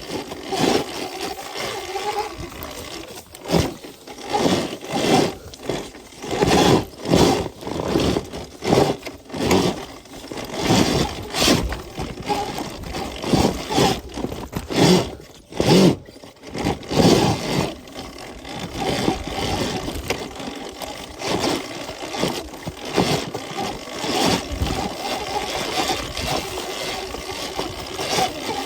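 Surron Ultra Bee electric dirt bike ridden off-road: a motor whine under wind buffeting on the microphone and irregular knocks from the rough ground.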